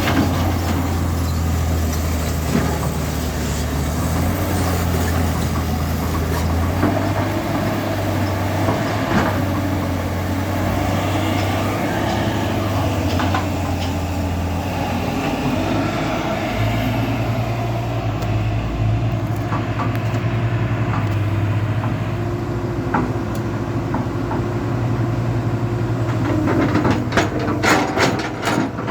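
Heavy diesel machinery running steadily, its engine note shifting a couple of times, with scattered metal knocks and a quick run of clanks near the end.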